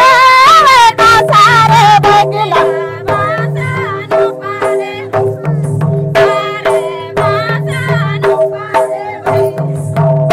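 Oraon folk dance music: voices singing a wavering melody over a steady sustained tone, with mandar barrel drums beating a rhythm of sharp strokes throughout. The singing is strongest in the first couple of seconds.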